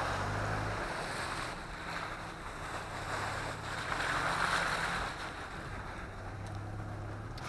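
An off-road 4x4 driving along a forest dirt track: a steady low engine drone under a rushing noise of tyres and body that swells and fades twice.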